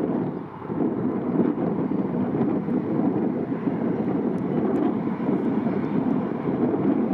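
Airbus A319's CFM56 jet engines running, a steady rushing noise, with wind on the microphone.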